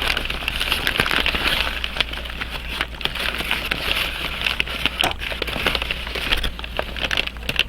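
Paper crinkling and rustling as it is unwrapped, a dense uneven crackle with many small clicks.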